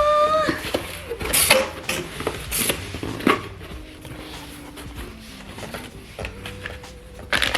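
A cardboard box being cut open and handled with scissors: several short scraping rustles of blade, tape and cardboard, with quieter fumbling between them.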